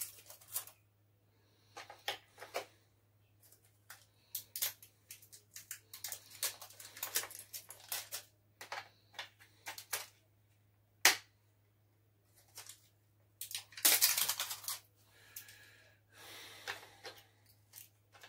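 Plastic clicks and taps from handling an HJ808 RC boat's pistol-grip transmitter, irregular and spread out, with one sharp click about 11 seconds in and a longer scraping rustle about 14 seconds in.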